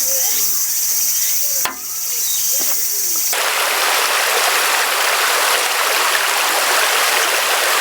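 A mountain river rushing steadily, cutting in abruptly about a third of the way in. Before it, a steady high hiss with a few short chirping calls and one sharp click.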